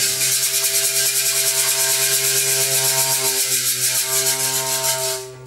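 A low drone held on a single note, with a fast, even, hissing rattle like a shaker played over it; both start together and stop together.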